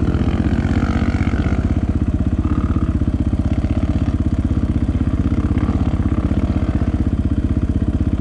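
Dirt bike engine idling steadily with an even exhaust beat.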